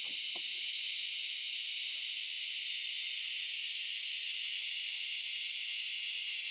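Steady, high-pitched chorus of summer insects in the woods, with a couple of faint clicks at the start.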